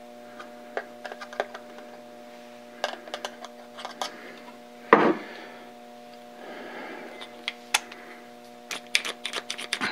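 Light scattered clicks and taps of small steel parts being handled and fitted: the dividing head's index plunger being oiled and put in place, with one sharper knock about five seconds in. A steady low electrical hum runs underneath.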